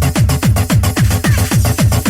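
Fast electronic dance music from a DJ mix: a steady, fast kick drum over bass and synth stabs, with no MC vocals.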